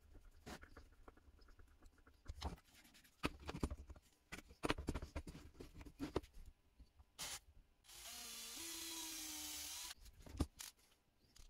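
Hand screwdriver turning a screw into wood, with scattered clicks and knocks of small wooden parts being handled. Past the middle comes about two seconds of steady rasping rub with a wavering squeak, wooden parts rubbing together, then another knock.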